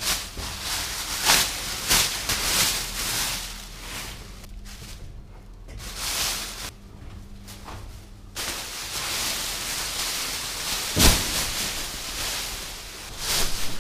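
Thin plastic masking film rustling and crinkling as it is spread and pulled over a car, with a few sharp crackles, the loudest about eleven seconds in. A low steady hum runs underneath.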